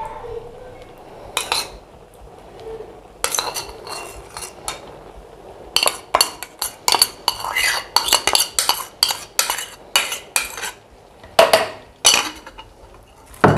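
A spoon clinks and scrapes against a bowl and the rim of an aluminium cooking pot as yogurt is scooped out and dotted over the rice. There are a few scattered knocks, then a quick run of taps from about six to eleven seconds.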